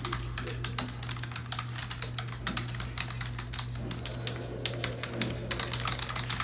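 Fast typing on a computer keyboard, a quick run of keystrokes that thins out for about a second and a half after the middle before picking up again. A steady low hum runs underneath.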